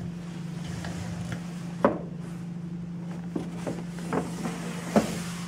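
Whiteboards being handled and set in place: two sharp knocks about three seconds apart with a few lighter taps and rubs between, over a steady low hum.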